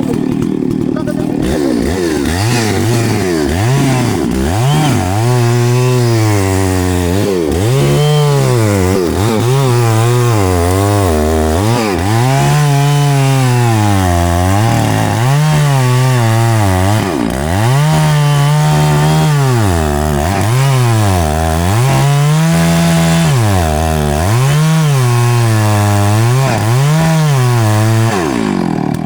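Two-stroke chainsaw running at high revs while cutting into a tree. Its pitch drops sharply and climbs back every second or two as the throttle eases and opens again or the chain bogs in the wood.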